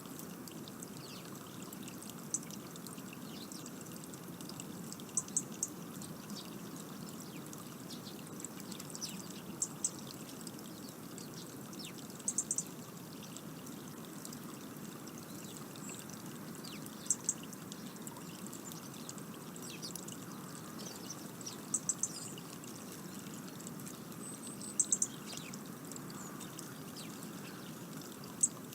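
Small garden birds giving short, very high, thin calls, one to three at a time every few seconds, over a steady low rushing noise.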